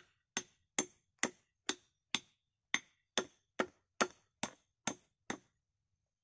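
Hatchet hewing the edge of a log round, with about a dozen quick, even chopping strokes, roughly two a second, that stop shortly before the end.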